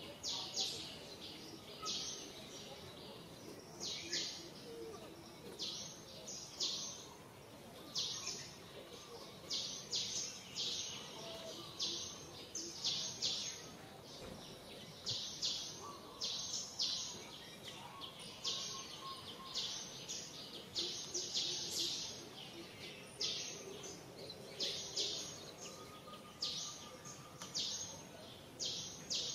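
Short, high-pitched chirps repeating irregularly, about one or two a second, over a faint steady outdoor background.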